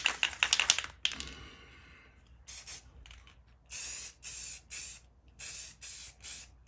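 Aerosol can of black spray paint: the mixing ball rattles quickly as the can is shaken during the first second. From about two and a half seconds in, a series of short hissing spray bursts follows as a new coat goes onto the wheel center caps.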